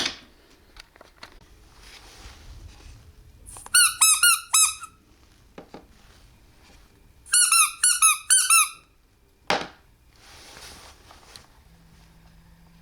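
Two quick runs of four or five short, high squeaky chirps, each falling in pitch, a few seconds apart, followed by a single sharp knock.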